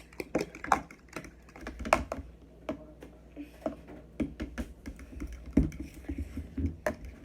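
Fork whisking two raw eggs in a bowl: quick, irregular clicking of the fork's tines against the bowl.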